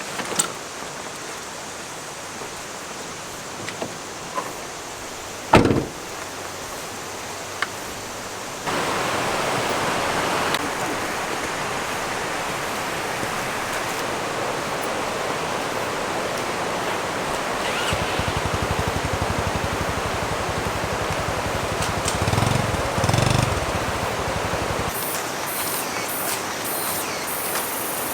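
Steady rush of a mountain creek's flowing water, stepping up suddenly to a louder rush about a third of the way in. Before that, a quieter hiss with a few clicks and one loud thump; a low pulsing rumble joins in the last third.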